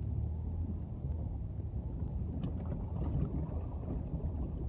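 A car driving through deep floodwater, heard from inside the cabin: a steady low rumble of the engine and water surging underneath the car.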